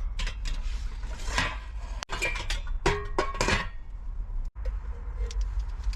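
Metal parts of a homemade stove clinking and knocking together as they are handled, with a few short metallic rings near the middle.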